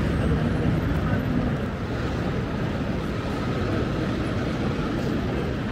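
Steady city background noise, mostly a low, even rumble of traffic with no distinct events.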